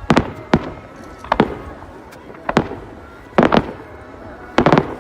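Fireworks going off in a series of sharp bangs, about one a second, the later ones coming in quick clusters of two or three.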